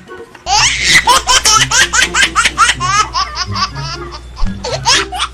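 High-pitched laughter, a rapid run of short rising "ha" syllables starting about half a second in, over background music.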